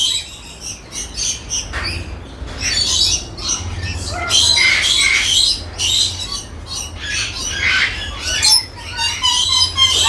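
Lories in an aviary giving many short, harsh squawks and screeches. Near the end a rapid, repeated call begins.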